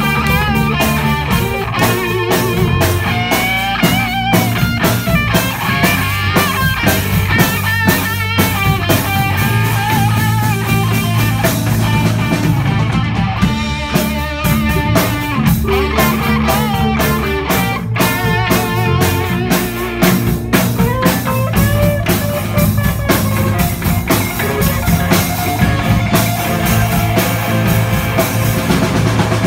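Live rock band playing an instrumental passage: an electric guitar carries a wavering melody line over bass guitar and a drum kit.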